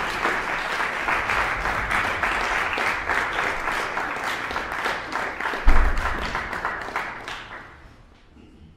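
Audience applauding, dying away about eight seconds in, with one low thump partway through.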